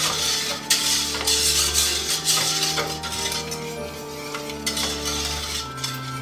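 A whisk stirring a liquid lemon custard mixture in a saucepan, with scraping and light clinking against the pan, over background music with steady sustained notes.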